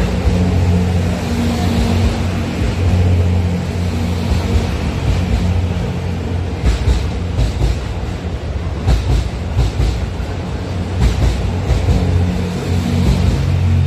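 The JR West 87 series Twilight Express Mizukaze sleeper train rolls past alongside the platform with a steady low hum. Its wheels click over rail joints a few times, at about seven, nine and eleven seconds in.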